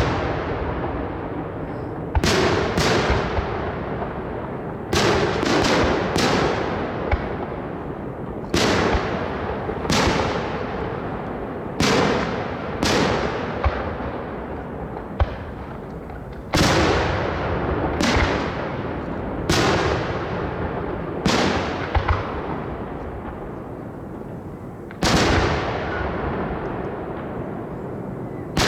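Fireworks display: shells bursting one after another, about eighteen sharp bangs at irregular intervals of one to three seconds, some in quick pairs, each trailing off in a long rumbling echo.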